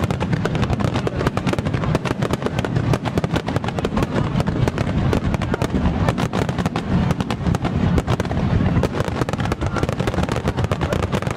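Fireworks going off in a dense, continuous barrage of rapid crackling pops over a steady low rumble.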